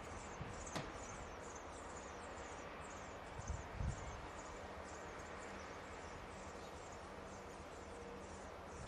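Low, steady hum of a standing freight train's diesel locomotive idling, with insects chirping in a fast repeating pattern over it. There are a couple of soft thumps about three and a half seconds in.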